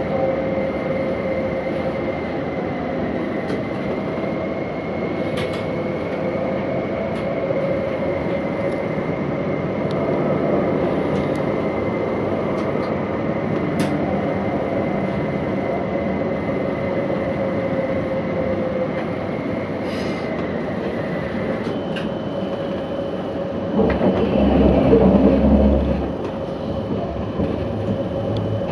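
CAF Urbos 3 light rail tram running on its track, heard from on board: a steady rolling rumble with a faint, steady high whine from its drive. The whine steps up to a higher pitch a little after two-thirds of the way through, and a louder low rumble rises and fades shortly after.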